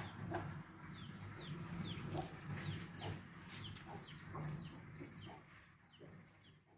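Pen of farm animals: a nursing sow grunting low and steadily, with short high peeps that fall in pitch, repeated about twice a second and fading near the end.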